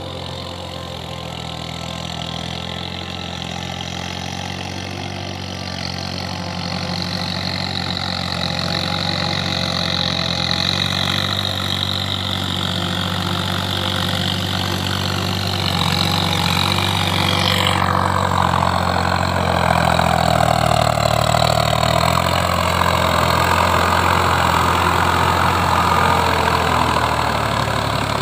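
Case IH tractor's diesel engine running steadily as the tractor tills a flooded paddy field, getting louder as it comes nearer.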